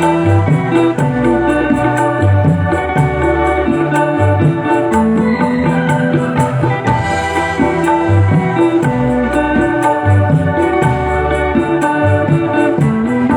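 Instrumental music: held melody notes over bass notes and a steady percussion beat.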